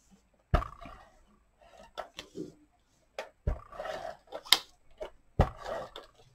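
Handheld adhesive tape runner drawn across card stock in short scraping strokes, with several sharp knocks and taps of the dispenser and paper on the table in between.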